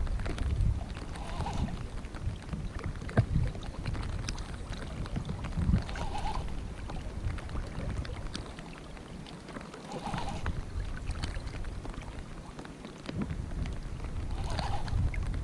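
Wind buffeting the microphone with a low, uneven rumble, over small waves lapping against a rocky bank, with a few faint scattered clicks.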